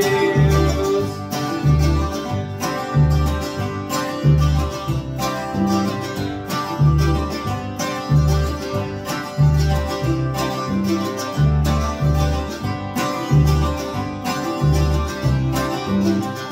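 Acoustic folk band playing an instrumental passage with no singing. An acoustic guitar and a mandolin are strummed over an upright double bass plucking a steady, prominent bass line on the beat.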